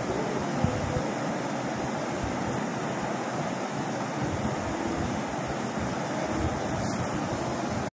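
Steady rushing noise, like air blowing across a microphone, at an even level throughout.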